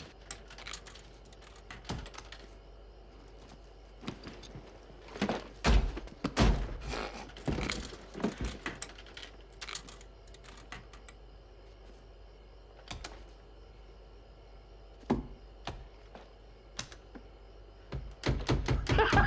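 Coke vending machine being worked: a run of small clicks and rattles from coins and buttons, and a cluster of loud heavy thumps about six seconds in as the machine is struck. The machine has eaten the money without giving a can.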